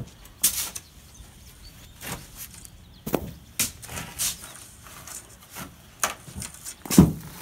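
Shovels and a rake scraping through a load of sand in short, irregular strokes, the loudest near the end.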